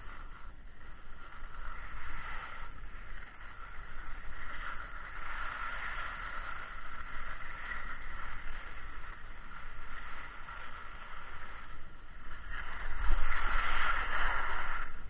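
Skis sliding and scraping over snow on a downhill run: a steady hiss that rises and falls and is loudest near the end. Under it runs a low rumble of wind on the microphone.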